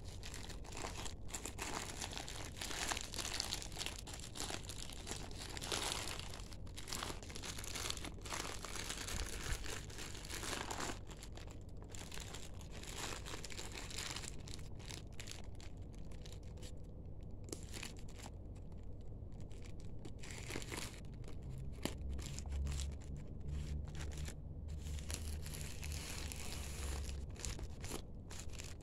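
Plastic courier mailer bag crinkling and rustling in the hands as it is handled and cut open with scissors, with many short, irregular crackles.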